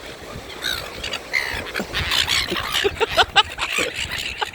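A flock of seagulls squawking, many short calls overlapping, starting about half a second in and getting busier.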